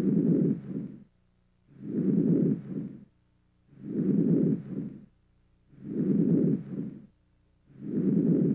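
Normal vesicular breath sounds heard through a stethoscope over the lungs: soft, low-pitched breathing noise, about one breath every two seconds. Each breath is a longer inspiration followed by a short, fainter part of expiration.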